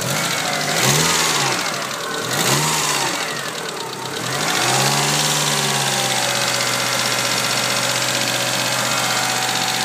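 Eagle Talon engine blipped up and back down three times, then settling into a steady idle, with a fast light ticking running over it. The tick is taken for a noisy hydraulic lifter, which new 3G lifters are expected to cure.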